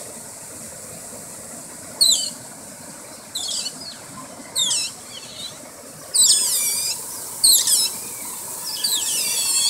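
A group of Asian small-clawed otters squealing: a run of shrill, sweeping squeaks in short bunches, growing more frequent and overlapping from about six seconds in.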